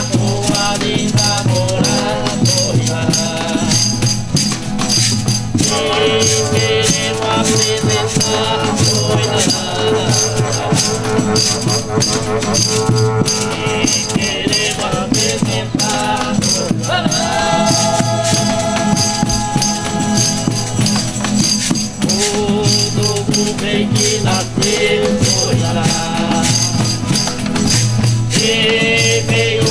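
Folia de Reis ensemble singing a slow sung chant in several voices, some notes held long. Acoustic guitars and a steady jingling tambourine accompany them.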